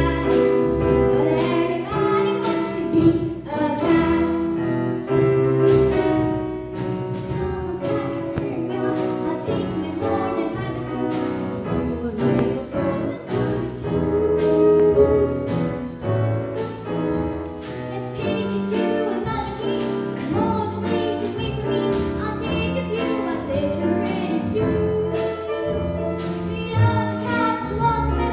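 A young girl singing a jazzy song into a microphone, with a live band of piano, drum kit and cello; the drums keep a steady beat under the voice.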